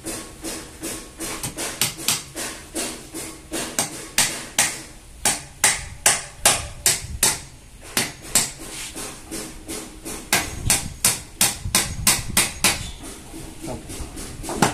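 Hammer blows struck over and over, two or three a second with small irregular pauses, each a sharp knock.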